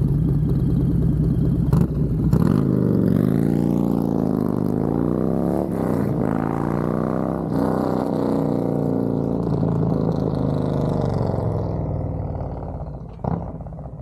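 Harley-Davidson Road Glide's Milwaukee-Eight V-twin, fitted with a Screaming Eagle Stage 2 511 cam and a Thumper Moto stainless 2-into-1 exhaust, running. It runs steadily at first, then its note rises and falls several times as the throttle is opened and closed, then it evens out and grows fainter over the last couple of seconds.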